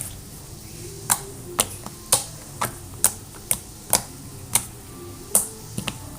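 Green slime being squeezed and worked by hand, giving off a run of sharp clicking pops about twice a second, starting about a second in.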